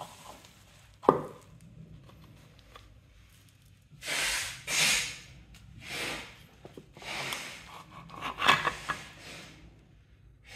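Hands working an Alvey side-cast fishing reel apart on bubble wrap: a sharp click about a second in, then several short rustling, rubbing swells as the spool is lifted off its centre shaft.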